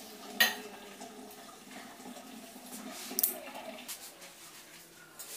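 Water draining and trickling in a steel kitchen sink as rinsed boiled noodles drain. There is a sharp clink about half a second in and another click about three seconds in.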